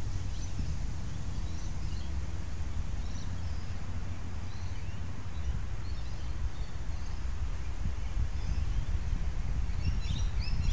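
Wind rumbling on the microphone, with faint bird chirps here and there that come more often near the end.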